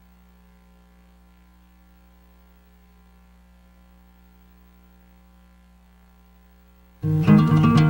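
Faint steady electrical mains hum; near the end, acoustic guitar music starts suddenly and loudly, strummed in a steady rhythm.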